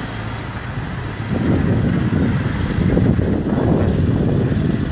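Motor vehicle engine running close by with a steady low hum, then a louder, rough low rumble from about a second and a half in, as a vehicle drives past.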